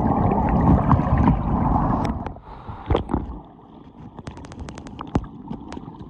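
Rushing, splashing water at a waterfall, loud and heavy for about two seconds, then falling away to a softer wash broken by a quick run of small clicks and drips.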